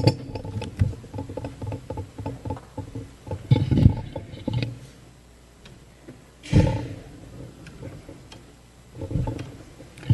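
Close-miked handling noise at a podium microphone: footsteps, then a few dull thumps and rustles, heard as papers are set down and the microphone is adjusted.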